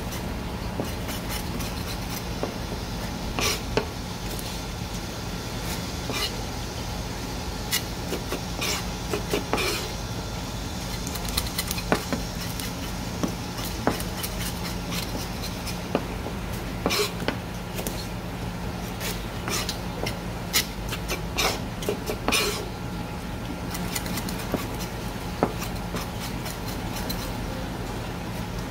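Knife knocking and scraping on a cutting board while small gizzard shad are cleaned and cut for sashimi: irregular sharp clicks and taps over a steady low hum.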